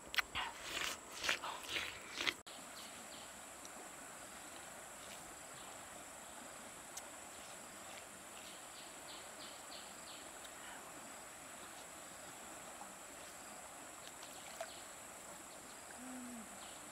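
Crisp, wet bites and chewing into a watermelon slice for about the first two seconds. After that, insects drone steadily at a high pitch, with a few bursts of rapid chirping.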